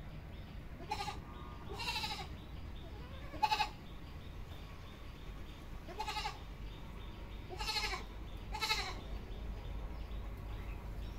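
Goat bleating, about six short wavering bleats spread over the few seconds, over a steady low rumble.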